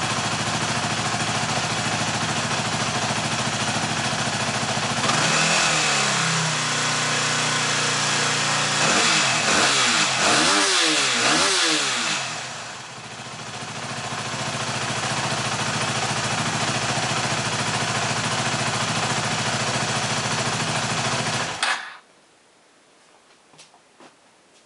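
2011 Yamaha WR250X single-cylinder four-stroke engine on its stock exhaust, idling steadily. It is revved once about five seconds in, then given a run of quick throttle blips around ten seconds, and settles back to idle. Near the end the engine is switched off and stops abruptly, leaving a few faint ticks.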